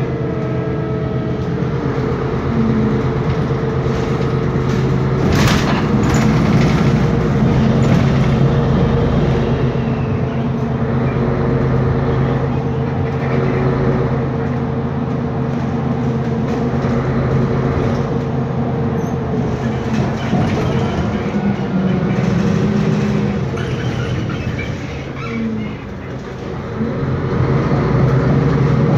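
Interior drive noise of a Mercedes-Benz Conecto G articulated bus: its rear-mounted OM457LA turbo diesel running under way with a steady hum, and a sharp crack about five seconds in. The noise dips briefly near the end and then rises again.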